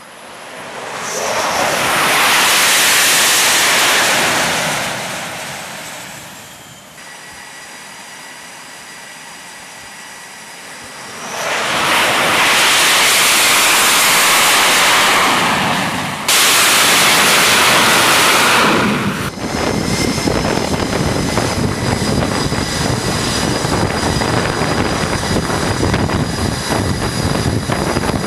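Jet engine noise on an aircraft carrier's flight deck: it swells up loudly twice as jets come in to land, the second time ending abruptly, then an F/A-18's engines run steadily with a thin high whine.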